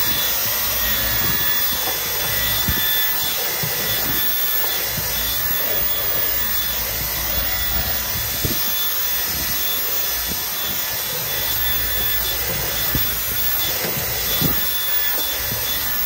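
Dyson V10 Animal cordless vacuum running at full suction with its mini motorised rotating-brush head pushed over trunk carpet, picking up sand: a steady rushing whine with a few constant high tones. The motor cuts off suddenly at the very end as the trigger is released.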